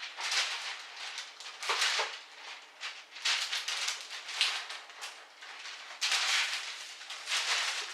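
Baking paper being pulled from its roll and handled, rustling and crinkling in irregular bursts, denser and louder from about six seconds in.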